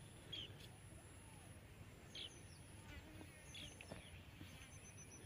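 Near silence: quiet open-air background with a few faint, brief bird chirps.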